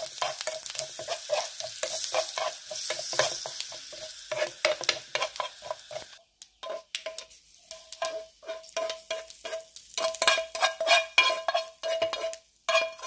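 Curry leaves and mustard seeds sizzling in hot oil in a nonstick pan while a steel spoon stirs them in quick strokes. About halfway through, the sizzle dies away and a run of ringing spoon scrapes and clinks against the pan follows as the tempering is scraped out onto the chutney.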